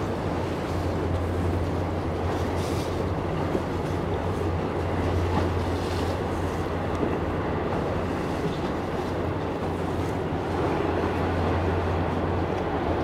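Steady low drone of ship diesel engines, an even hum with a rumbling undertone. Brief gusts of wind hiss on the microphone now and then.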